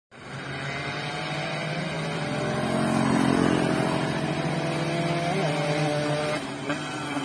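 Motorcycle engine running steadily, growing somewhat louder over the first few seconds and then holding level.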